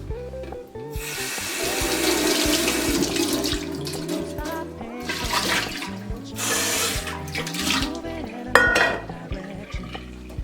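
Tap water running into a sink in three bursts, the longest about three seconds, over background music. A sharp clink with a short ring comes near the end.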